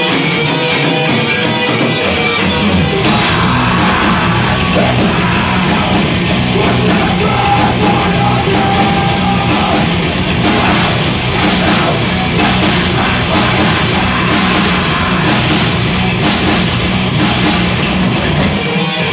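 Live rock band playing loud, heavy rock on electric guitars, bass guitar and drum kit. The bass comes in about a second in and the full band by about three seconds, with crashing cymbals about twice a second through the second half.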